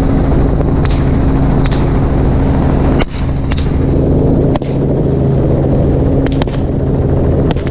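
AR-15 rifles fired from a helicopter: about eight sharp, irregularly spaced shots over the steady drone of the helicopter's engine and rotor.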